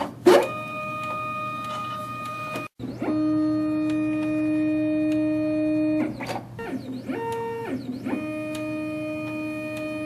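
Zebra ZXP Series 3 card printer running its cleaning cycle with the long cleaning card: the card-feed motors whine at a steady pitch in runs of a few seconds, stopping and restarting. Between the second and third runs comes a shorter, higher whine that rises and falls in pitch.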